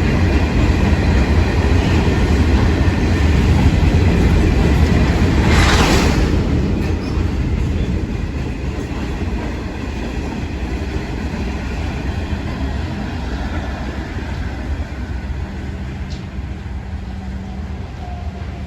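A train passing on the line, its wheels rumbling and clattering on the track. A short loud hiss comes about six seconds in, and then the rumble slowly fades as the train draws away.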